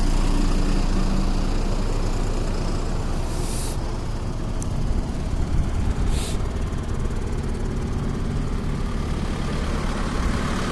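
Autostack 2 turf harvester running steadily as it cuts and rolls turf, with two short hisses, about three and six seconds in.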